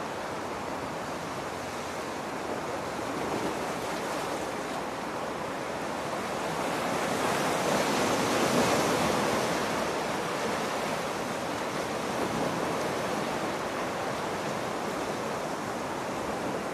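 Sea waves washing onto the shore, one swell building to a peak about eight seconds in and then falling back.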